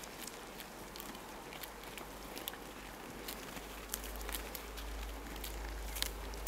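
Alpacas browsing on a Scots pine branch: irregular crisp crunches and crackles, several a second, as they bite and chew the needles and snap small twigs.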